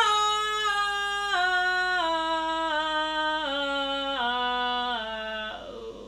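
A woman's voice singing a held tone, starting high and stepping down note by note through about eight pitches before stopping near the end. It is her way of starting high and working lower in search of a throat-singing tone.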